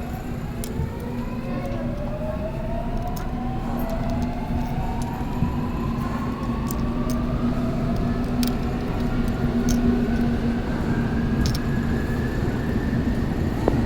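Subway train running on Seoul Metro Line 8: a steady rumble with a motor whine rising slowly in pitch as the train gathers speed, and a few faint clicks.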